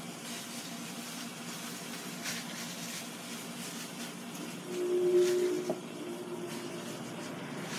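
Raw chicken wings being laid one by one into the hot, preheated basket of a Ninja Foodi XL grill: a steady faint hiss with a couple of soft taps. A short low hum, about a second long, comes about five seconds in.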